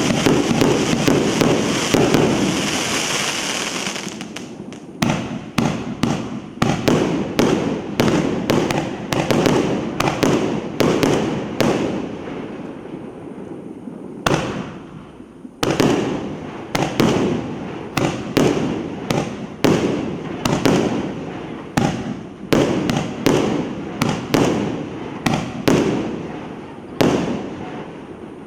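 A 200-shot, 1.5-inch firework battery (Rusalut 'Kontrabanda') firing. It opens with a dense run of crackle for the first few seconds, then gives separate sharp bangs about one to two a second, with a short lull near the middle.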